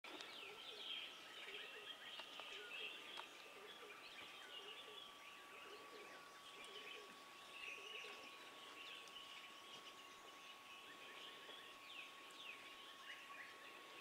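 Faint chorus of wild birds chirping and calling in dry bush, many short high chirps and trills overlapping, with some lower short calls in the first half. A steady thin high tone runs underneath, sinking slightly in pitch over the first few seconds.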